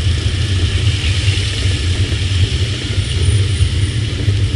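Steady rumbling wind on a bicycle-mounted camera's microphone while riding, mixed with tyre and road noise.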